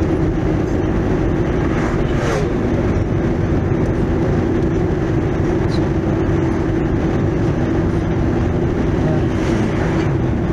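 Steady drone of a moving car heard from inside the cabin: engine and tyre noise with a constant low hum and a rush of air. There is a brief swell of noise about two seconds in.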